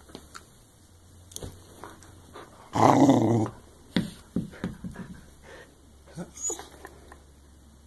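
Dog growling in play over a tennis ball, in short bursts. The longest and loudest burst comes about three seconds in, and there are a few sharp knocks.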